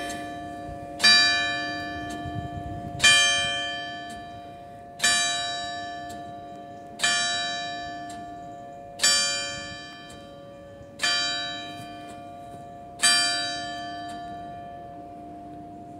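A church tower's clock bell struck by its hammer to sound the hour, seven strokes evenly spaced two seconds apart. Each stroke rings with bright overtones and decays slowly, and the hum lingers between strokes.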